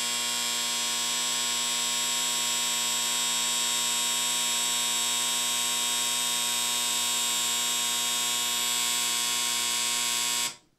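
Electric football game field vibrating, a steady electric buzz from the switched-on board that drives a single base forward in a run test; it cuts off abruptly near the end when the field is switched off.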